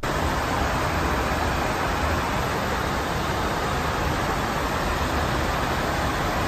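Steady rushing noise inside an aircraft in flight: airflow and engine noise, unbroken and even throughout.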